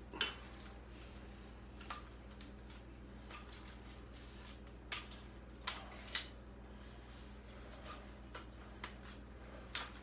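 Scattered clicks and light knocks from a lightweight tripod's telescoping metal legs and plastic clamps being handled and adjusted, the loudest just after the start and a few more around five to six seconds in, over a faint steady hum.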